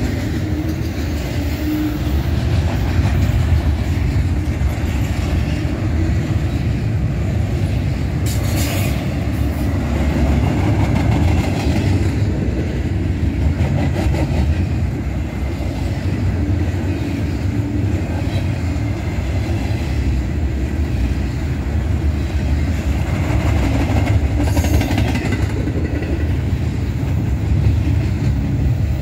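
Double-stack intermodal well cars of a freight train rolling past: a steady, loud low rumble of steel wheels on rail. Two brief high-pitched bursts come through, about nine seconds in and again near the end.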